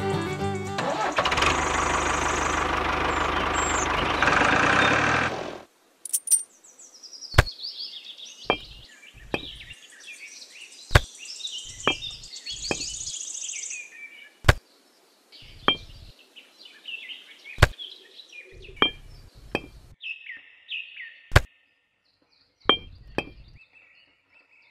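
Miniature clay bricks set down one at a time on a small painted wooden trolley bed: sharp single clicks about once a second, with birds chirping behind them. Before the clicks, music ends and a loud steady noise runs for about four seconds, then cuts off suddenly.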